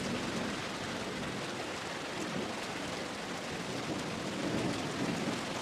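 Steady rain falling, an even hiss with no distinct rhythm or pitch.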